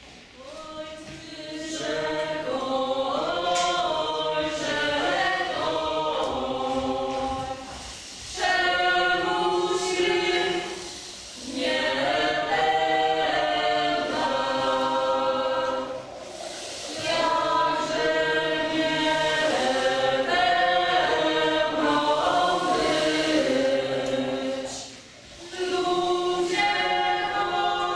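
A small group of singers on stage singing together as a choir, in several phrases with short breaks between them.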